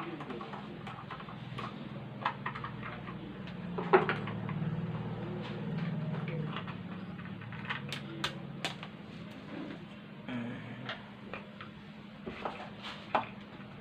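Plastic terminal-box cover of a small Tullu water pump being worked loose and pulled off to reach the capacitor: scattered clicks and knocks, a sharper knock about four seconds in and a quick run of clicks about eight seconds in, over a steady low hum.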